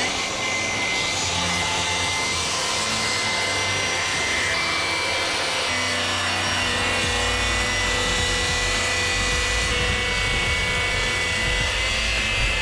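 Power saw running steadily while cutting a wooden cabinet end panel along a scribed line.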